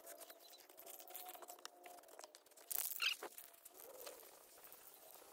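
Aerosol spray paint can hissing in one short burst about three seconds in, spraying black paint onto a truck's steel wheel rim, amid faint scattered clicks.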